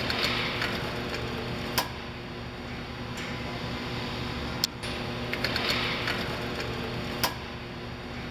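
Wexxar BEL290H case packing machine running: a steady hum from its motors and conveyors, sharp clacks about every two and a half seconds, and two hissing spells as it handles a corrugated case.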